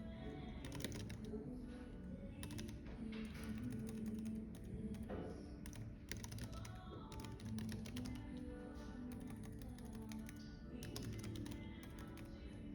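Typing on a computer keyboard: rapid key clicks in bursts with short pauses between them.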